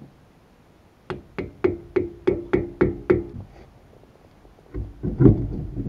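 A quick run of about eight sharp metallic knocks with a ringing note, roughly three a second, on a trailer's wheel hub and brake drum. Near the end comes a heavier low thud and scrape.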